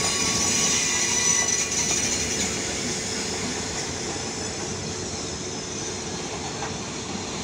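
Freight train wagons rolling along the track: a steady rolling rumble with high ringing wheel tones that are strongest in the first couple of seconds, the whole sound slowly getting quieter.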